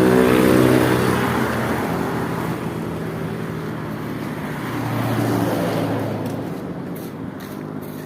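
Motor vehicles driving past on a road: one engine is loud at the start and fades away as it passes, and a second vehicle swells and fades about five seconds in.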